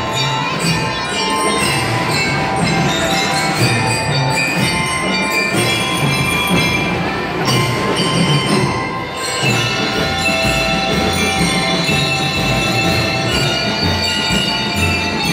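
High school drum and lyre corps playing live: metal bell-lyres ring out the melody over snare and bass drums, and the bass drums get heavier about two-thirds of the way through.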